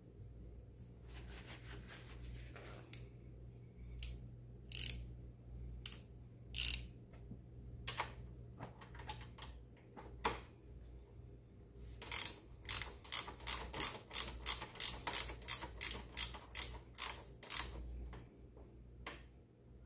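Hand ratchet clicking as it turns a magnetic oil drain plug into a GY6 scooter engine: scattered clicks at first, then a steady run of about three clicks a second for some six seconds in the second half.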